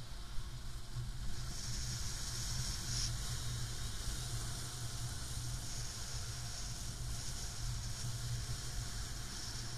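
Wind rushing over the camera microphone of a paraglider in flight: a steady low rumble with a high hiss that swells and fades several times.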